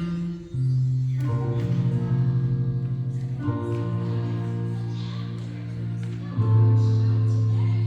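Worship band's instrumental intro: long held keyboard chords that change every two to three seconds, with acoustic guitar.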